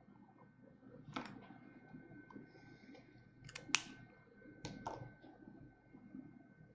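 A few sharp clicks and taps in three groups, the loudest in the middle, from a marker pen being handled and set down on the desk as the drawing is finished. A faint steady hum runs underneath.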